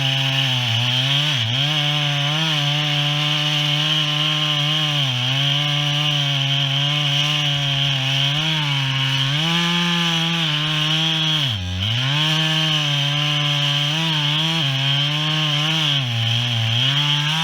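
Two-stroke chainsaw at full throttle cutting through wood. The engine pitch sags and recovers again and again as the chain loads up in the cut, and bogs down hard about two-thirds of the way through.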